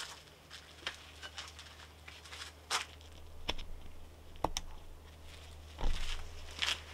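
Scattered light clicks and knocks with some brief rustling and scratching, from hand tools being picked up and handled; a steady low hum runs underneath.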